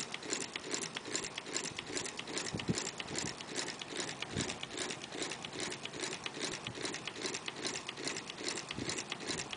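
Battery-powered Newman motor running, its switching giving a rapid, even clicking several times a second.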